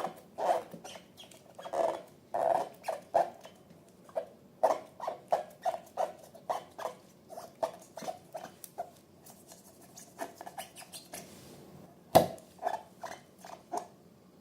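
Slime being squeezed and worked by hand: a run of short sticky clicks and wet squelches, several a second, with one louder snap about twelve seconds in.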